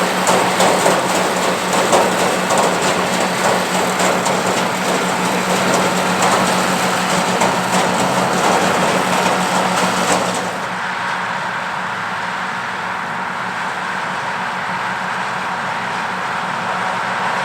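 Oliver 1655 tractor's engine running steadily under load, driving a two-row New Idea 324 corn picker whose mechanism clatters busily as it picks and husks the corn. About ten seconds in, the sound turns abruptly duller and a little quieter, the clatter falling away while the engine's hum carries on.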